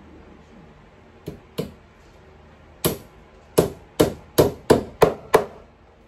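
Claw hammer driving a nail into a particleboard headboard shelf unit. Two light taps set the nail, then seven hard blows follow at about three a second.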